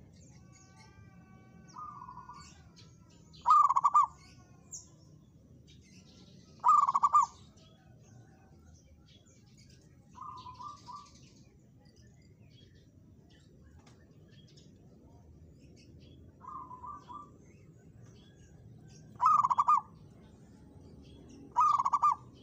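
Zebra dove (perkutut) cooing: four loud, rapid, stuttering coo phrases of about half a second each, spaced several seconds apart, with three fainter phrases of the same kind in between. Faint high chirps of small birds sound in the background.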